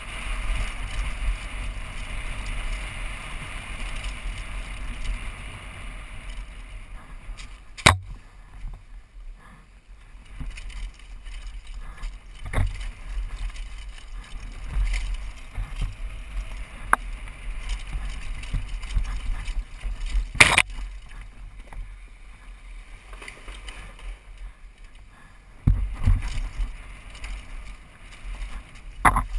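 Downhill mountain bike descending a dirt and rock trail: wind rushing over the helmet-mounted microphone and a low rumble of tyres on the ground, with the bike rattling. The rushing eases after about seven seconds, and a few sharp knocks stand out, the loudest about eight seconds in and near the two-thirds mark.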